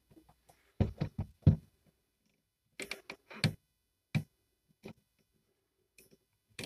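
A tool scraping and knocking at old sound-deadening stuck to a Lada 2101's steel floor pan. The strokes come short and separate, in a few quick clusters with pauses between.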